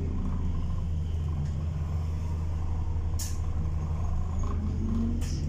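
Diesel engine of a single-decker bus running steadily, heard from inside the passenger saloon, with two short hisses of compressed air from the air brakes, about three and five seconds in.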